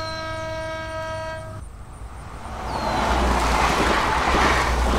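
Train horn sounding a held chord of several notes, which cuts off about a second and a half in; then the rising rush and low rumble of a passenger train going past.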